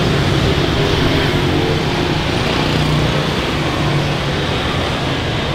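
Steady street traffic noise: motorbikes and other vehicles running along a busy road, with a continuous engine hum.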